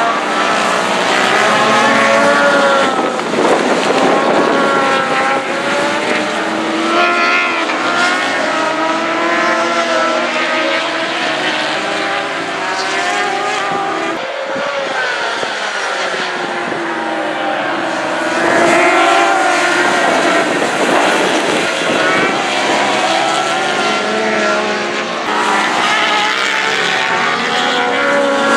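Racing motorcycles passing at speed in a pack, their engines howling, the pitch rising and falling as each bike goes by and shifts gear. A slightly quieter spell comes about halfway through before more bikes pass.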